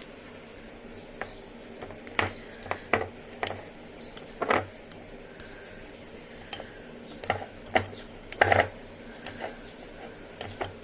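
A spoon stirring thick chocolate cake cream in a bowl, with irregular clinks and scrapes against the bowl's sides.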